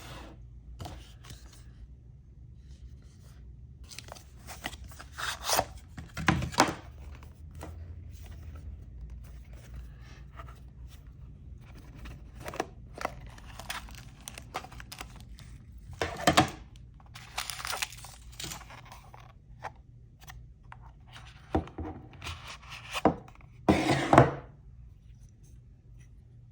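Packaging being handled and opened during the unboxing of a Holosun green dot sight: irregular tearing, scraping and rustling with a few sharp knocks, the loudest bursts near the end, over a steady low hum.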